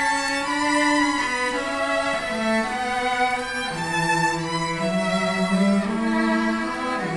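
Violin and cello playing a live duet, the violin carrying a melody over sustained cello notes; the cello's low notes grow stronger about halfway through.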